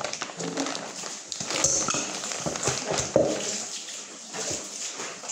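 Plastic bag of fish fillets crinkling as it is handled and shaken, with irregular knocks as the fish are tipped into a stainless-steel bowl; the sharpest knock comes a little past halfway.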